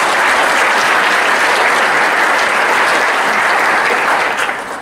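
Hall audience applauding, a loud, steady clapping that dies away near the end.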